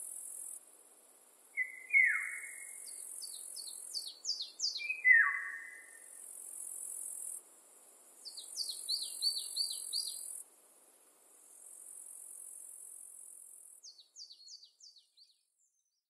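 Forest songbirds singing: quick series of short descending notes, and twice a louder call that slides down. Behind them runs a high, steady insect buzz in stretches of a few seconds that stop and start.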